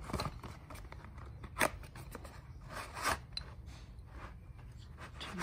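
Small cardboard boxes being handled and opened, with a few sharp clicks and short scrapes of card; the loudest click comes about a second and a half in.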